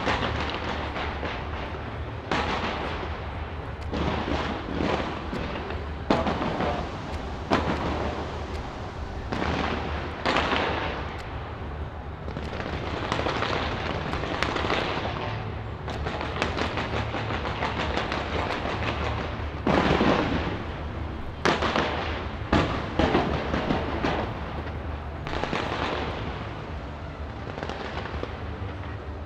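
Fireworks launched from the Taipei 101 skyscraper, heard close up: a dense, continuous run of bangs and rapid crackling. The sharpest bangs come about six seconds in and again around twenty to twenty-three seconds.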